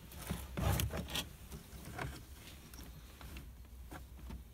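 Hands moving a car-stereo wiring harness and its plastic connectors behind the dash: scattered rustles and light knocks, the loudest cluster about half a second to a second in.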